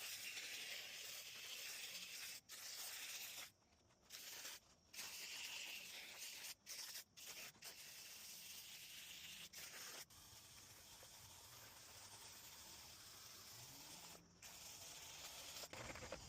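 Steady spraying hiss of liquid being sprayed onto an air-conditioner condenser coil, broken off abruptly several times.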